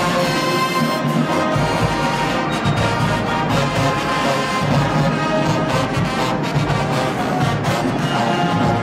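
Show-style HBCU marching band playing: a full brass section with trombones and trumpets over the drumline, steady and loud.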